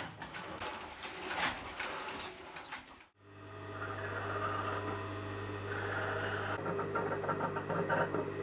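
A pedal-powered loom clattering for about three seconds, then a sudden change to a steady electric motor hum. A fast, even stitching rattle of a sewing machine joins in near the end.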